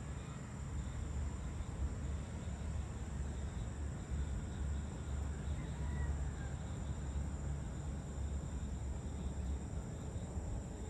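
Outdoor evening ambience: insects buzzing steadily at a high pitch over a low, steady rumble, with a faint bird call or two about halfway through.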